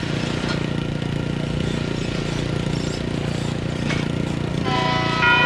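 A steady low engine rumble runs throughout. Near the end, the railroad crossing's electronic bell starts ringing as the signals activate for an approaching train.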